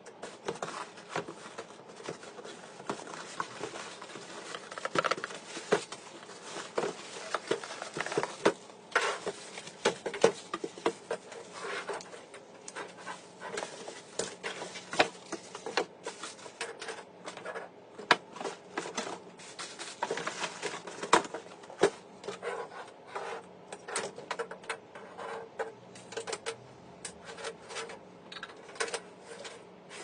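Cardboard box and packaging being handled while a handheld vacuum cleaner and its cord are unpacked: irregular rustles, scrapes and light knocks.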